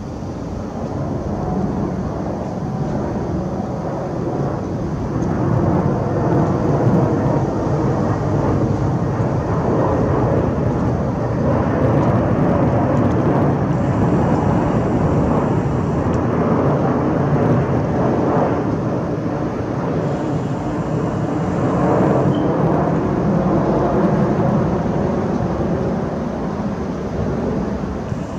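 Jet engines of an Emirates Airbus A380 passing low overhead on approach with its landing gear down: a loud, continuous rumble that swells over the first several seconds, stays high through the middle and eases near the end.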